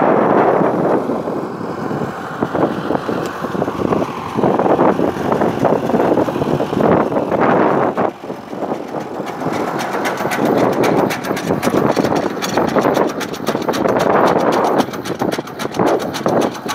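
Farm tractor engine running under load as it draws a sapling-lifting blade through the soil to loosen nursery saplings.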